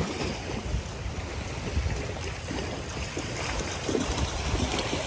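Strong current of shallow seawater rushing and lapping along a pebble shore, with light splashing from people wading. Wind buffets the microphone as a low rumble.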